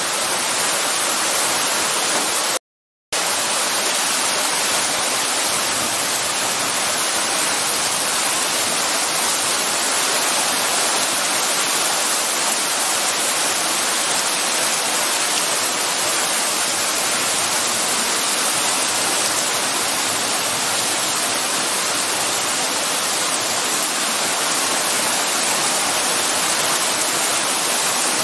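Heavy rain pouring down in a storm, a dense, steady hiss. It cuts out completely for a moment about three seconds in.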